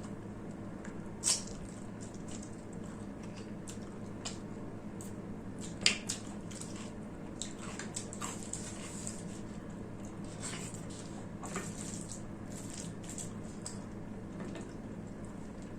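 Close-up mouth sounds of a person eating mutton curry and rice: wet chewing and smacking, with sharp clicks about a second in and again around six seconds. A steady low hum runs underneath.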